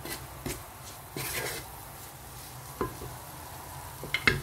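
Wooden spatula stirring boiled fusilli pasta with bell peppers and sauce in a pan, with a light steady sizzle under a few scrapes against the pan; a quick pair of sharper knocks comes near the end.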